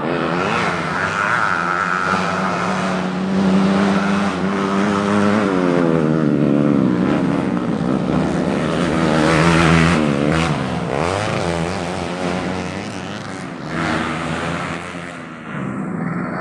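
Several modified underbone (bebek) racing motorcycle engines revving hard, their pitches rising and falling and overlapping as the bikes pass and shift, loudest a little past the middle.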